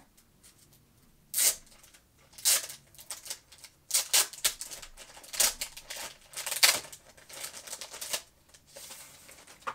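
Clear plastic sleeve crinkling and crackling as hands peel it off a paperback brochure, in irregular bursts of rustling from about a second in until near the end.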